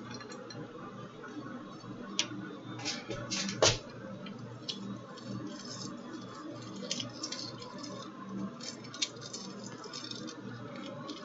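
Kitchen handling sounds: a knife working through a key lime and small items moved on the counter, heard as scattered faint clicks and light knocks, the sharpest about three and a half seconds in, over a faint low hum.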